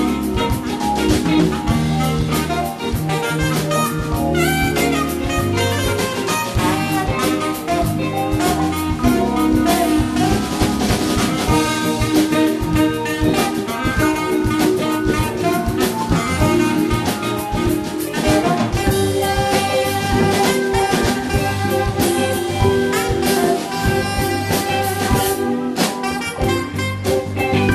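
Live jazz band playing a smooth-jazz instrumental: a saxophone carries the melody over electric bass, keyboards, guitar and drum kit.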